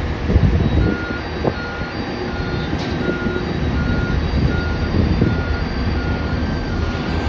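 Warning beeper on airport ground equipment, the backup-alarm kind, sounding about ten evenly spaced beeps roughly every 0.7 seconds over a continuous low rumble of engines.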